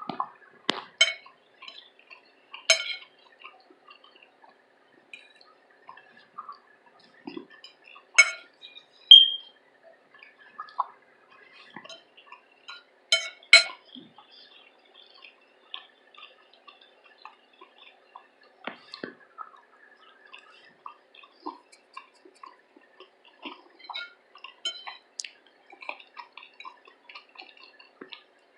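Close-up eating sounds: wet chewing and mouth clicks, with a few sharper clicks of a utensil or dish, and one short high clink about nine seconds in, the loudest sound.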